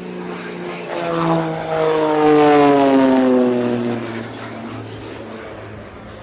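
Propeller-driven airplane flying past: the engine and propeller drone swells to its loudest about two and a half seconds in, then drops in pitch and fades as the plane passes.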